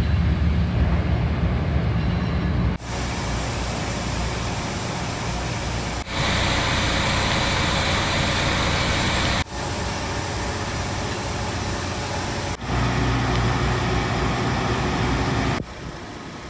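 Steady machinery hum and rushing air noise, changing abruptly about every three seconds between a low drone and a brighter hiss.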